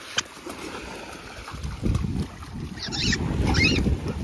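Wind buffeting the microphone over small waves lapping at the shore, the rumble growing louder about a second and a half in.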